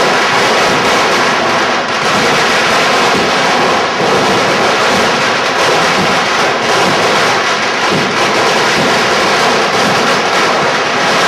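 Loud, nonstop barrage of fireworks and firecrackers: a dense crackling with many sharp bangs, without a break.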